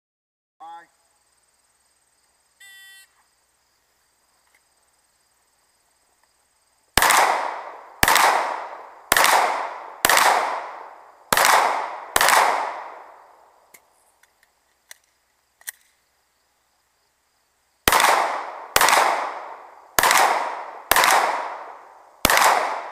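A short electronic beep, typical of a shot timer, then handgun shots fired at targets: six about a second apart, a pause of about five seconds, then five more at the same pace.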